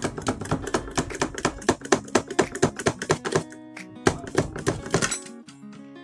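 Rapid clicking from a hand tool turning the mounting bolts of a twin-tub washing machine's gearbox, several clicks a second. It stops about three and a half seconds in and comes back briefly for about a second. Background music plays throughout.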